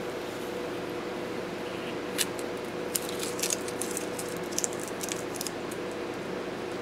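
Steady hum of room noise, with a scatter of light clicks and crinkles from about two seconds in until past the middle, from hands handling masking tape and paper at a drawing desk.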